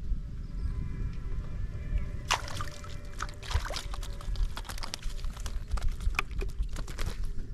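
Water splashing and sloshing in quick, irregular bursts, starting about two seconds in, over a low steady rumble.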